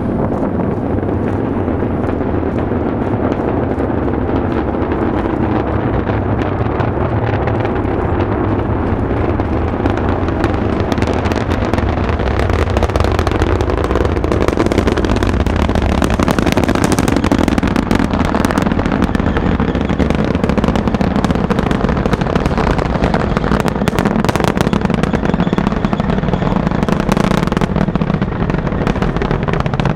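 Falcon Heavy rocket's 27 Merlin engines heard from a distance during ascent: a deep, continuous rumble that grows louder about twelve seconds in, with a dense crackle running through it.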